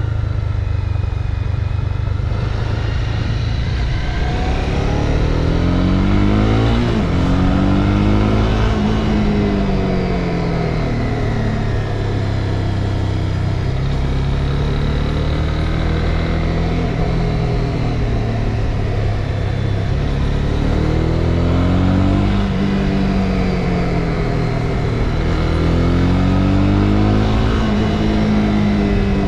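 Honda CB300R's single-cylinder engine under way, its pitch rising and falling several times as the throttle is opened and eased, over a steady low rush of wind on the microphone.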